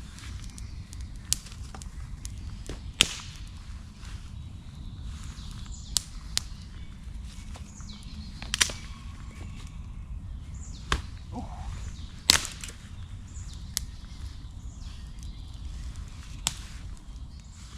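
Young campfire crackling, with sharp, irregular pops and snaps from the burning kindling over a low steady rumble; the two loudest cracks come about three and twelve seconds in.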